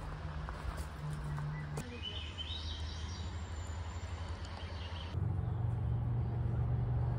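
Outdoor ambience among trees, with a small bird chirping in short rising notes from about two seconds in. About five seconds in, the sound changes abruptly to a steady low hum.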